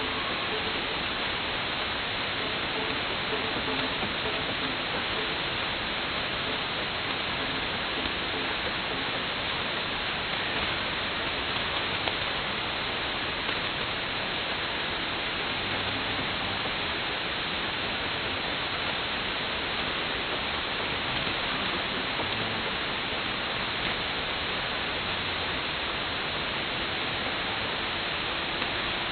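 Steady shortwave static and hiss from a Perseus SDR receiver tuned in synchronous AM to a weak pirate station on 6925 kHz. The station's signal is buried in the noise.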